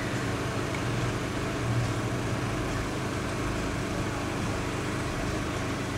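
A truck engine idling steadily, with a low, even hum.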